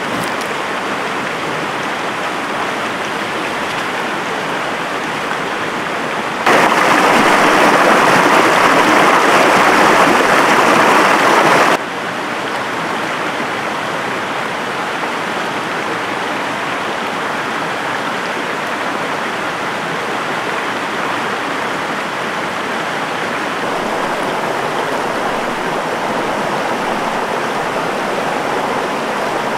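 Stream water rushing steadily. About six seconds in the rush abruptly grows louder for around five seconds, then drops back just as suddenly.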